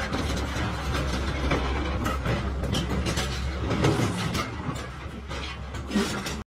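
SANY SY485H crawler excavator's diesel engine running steadily while its steel tracks clank and knock over rough ground. The sound cuts off abruptly at the end.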